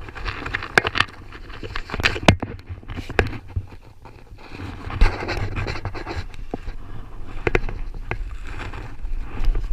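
A hiker's heavy panting on a steep climb, with uneven scratching and scraping noises and sharp clicks.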